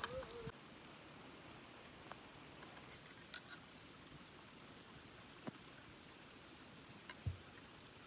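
Quiet outdoor ambience: faint, high, rapid chirping of insects, with a few soft clicks and one dull thump near the end.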